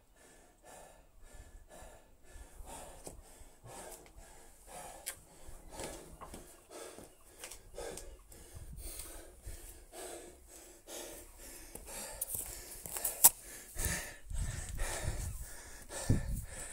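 A man breathing hard and fast, panting about three breaths a second, out of breath from intense exercise. In the last few seconds there are knocks, rustling and one sharp click as the phone filming is picked up and moved.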